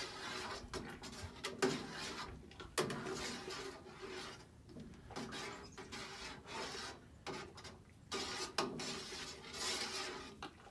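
A long spoon scraping and knocking against the inside of a stainless-steel brew kettle as thick malt extract syrup is stirred into the hot wort: an irregular rasping with a few sharp clicks.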